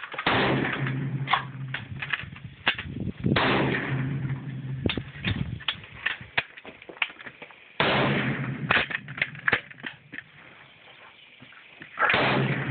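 Four rifle shots, roughly one every four seconds, each with a long ringing tail, with short sharp clicks and knocks in between.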